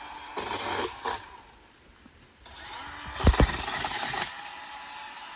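Battery-powered DeWalt chain pole saw running in two bursts, cutting through dead branches with a steady high motor whine. Two heavy thumps land about three seconds in, during the second burst.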